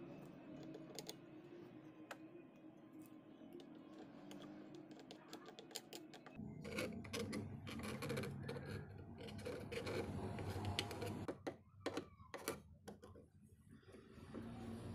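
Flat screwdriver blade scraping excess varnish off the windings and laminations of a Makita 9553B angle grinder armature: many small irregular clicks and scrapes, coming thicker from about six seconds in and thinning out near the end.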